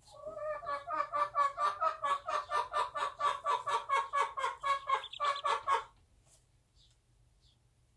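Bantam hen brooding her chicks, clucking in a fast, even run of about five short clucks a second that stops about six seconds in.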